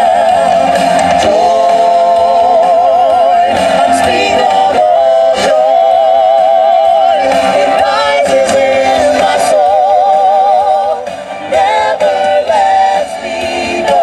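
Several voices singing into microphones over musical accompaniment, holding long notes with a wide vibrato. The singing dips briefly near the end.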